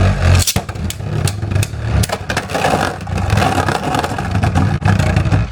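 Beyblade spinning tops whirring and scraping in a plastic stadium, with many sharp clacks as they collide.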